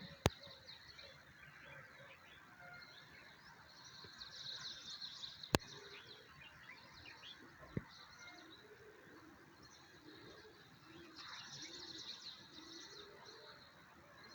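A chorus of many small birds chirping and twittering together, busiest about four seconds in and again near the end. Three sharp clicks stand out above it: one right at the start, one about five seconds in and one about eight seconds in.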